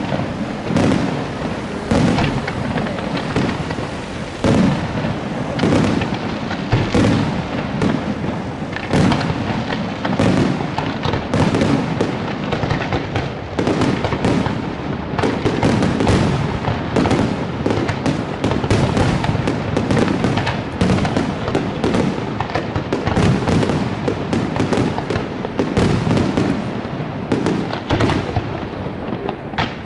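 Aerial fireworks display: a dense barrage of shells bursting, several bangs a second with no pause.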